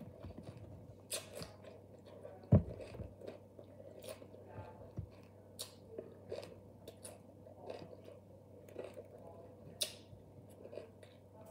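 Someone chewing raw green bell pepper pieces, with many small irregular crisp crunches, and one louder thump about two and a half seconds in.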